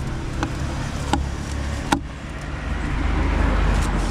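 An engine runs steadily and swells louder in the last second or so. Three sharp knocks come under a second apart in the first two seconds.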